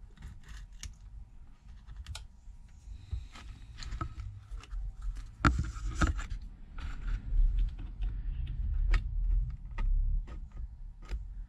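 A blade picking and scraping leftover broken screen glass off an LG Stylo 6's frame, making a run of small irregular clicks and scratches with low handling bumps beneath. A sharper snap comes about halfway through.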